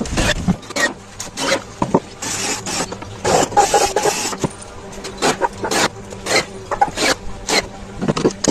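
Irregular knocks and taps of wood being worked by hand, with a couple of longer scraping strokes a few seconds in.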